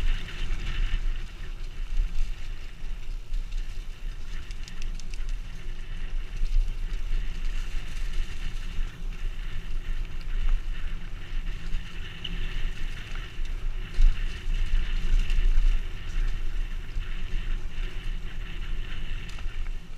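Mountain bike rolling fast down a dirt forest trail: a steady rumble of tyres on the ground with wind buffeting the bike-mounted microphone, and the bike rattling and knocking over bumps every few seconds.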